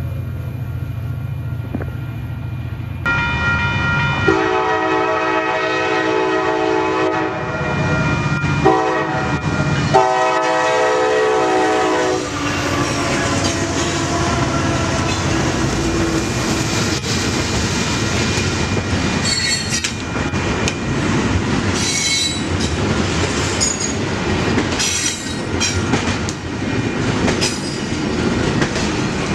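Diesel freight locomotive's air horn sounding a series of blasts over about eight seconds, the last one long. It is followed by the rumble of a double-stack container train passing close by at speed, with wheel clicks and sharp wheel squeals near the end.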